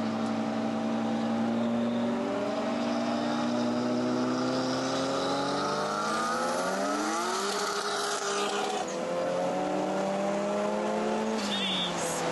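Nissan S13 Silvia's engine heard from inside the cabin on track, pulling hard through the revs. Its pitch climbs steadily and then drops back at each gear change, with two clear shifts partway through and near the end.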